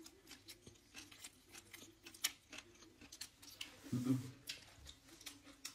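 Faint mouth clicks and smacks of someone chewing food eaten by hand from a plate, with small ticks of fingers picking at the plate. About four seconds in there is a short low hum of voice.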